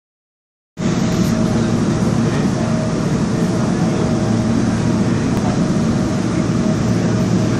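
Seoul Subway Line 2 train running, heard from inside the car: a loud, steady rumble of wheels and running gear with a faint steady tone above it. It cuts in abruptly about a second in.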